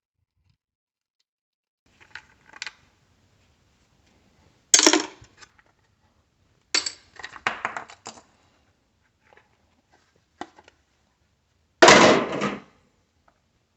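Hard clinks and clatters of small parts and hand tools on a hard work surface as an electronic power supply is dismantled. They come in separate bursts: a few light clicks, a loud clatter about five seconds in, a run of rattles, and another loud clatter near the end.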